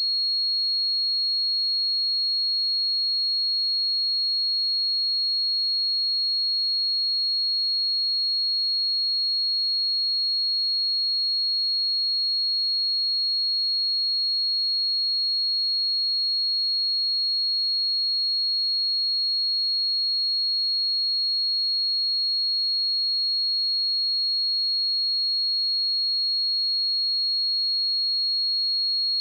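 A pure 4301 Hz sine-wave test tone, held steady at one high pitch and constant level throughout.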